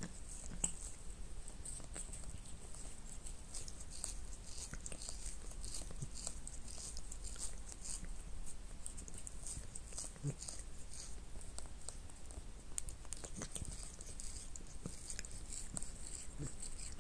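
Orange tabby Munchkin cat grooming itself right at the microphone, licking its paw and fur in a quick, irregular run of soft wet clicks.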